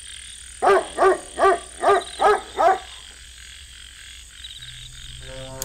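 A frog croaking six times in quick succession, about two calls a second, over a steady high-pitched night background.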